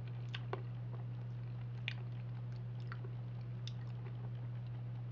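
Wet mouth smacks and small clicks of someone eating soft peanut butter off a spoon, a few scattered ones over several seconds, over a steady low electrical hum.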